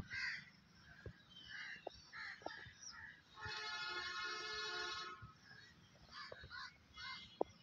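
Faint outdoor village ambience with scattered short bird calls. A distant vehicle horn sounds steadily for about two seconds in the middle.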